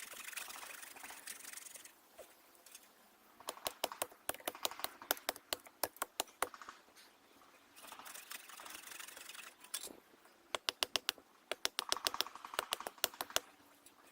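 Two runs of quick, sharp chopping strikes, several a second, as a hatchet shaves chips off a small tree stump at ground level.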